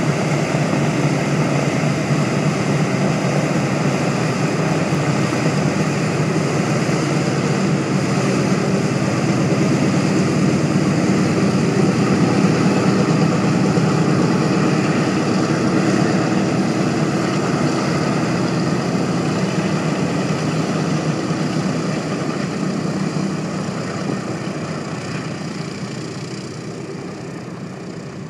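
Boeing B-17G bomber taxiing with its four Wright R-1820 Cyclone radial engines running: a steady, deep multi-engine propeller sound that grows fainter over the last several seconds.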